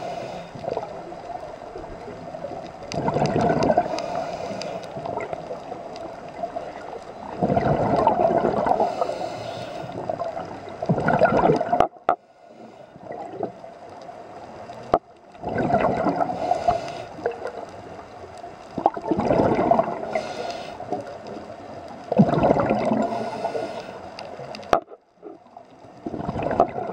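Scuba regulator breathing underwater: a gurgling rush of exhaled bubbles every three to four seconds, with quieter stretches between breaths.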